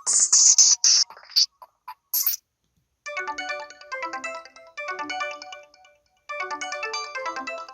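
Samsung SPH-W7100 mobile phone ringtones. First comes the loud, noisy, percussive close of one electronic tone. After a short pause, a bell ringtone starts about three seconds in: quick runs of chime notes falling in pitch, repeated in phrases about a second long.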